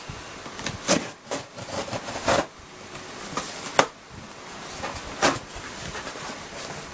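Packaging being handled and opened: scattered rustling with sharp crinkles and knocks, the clearest about a second in, near two and a half seconds, near four seconds and just past five seconds.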